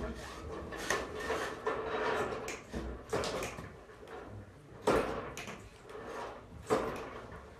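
Manual pull-down projector screen being worked with a wooden hook pole: a few sharp knocks and clunks of the pole and screen case, with sliding and rubbing as the screen rolls.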